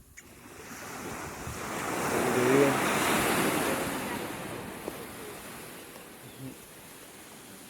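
A single ocean wave surging in: a rush of surf that builds to a peak about two and a half seconds in, then washes back and fades.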